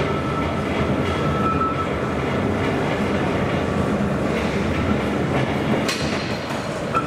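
Railway turntable slowly rotating with a locomotive aboard: a steady rumble with a faint high squeal now and then, and a sharp click about six seconds in.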